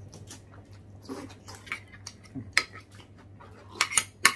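Metal utensil clinking and scraping against a glass serving dish, with scattered light clicks and a cluster of sharper clinks near the end.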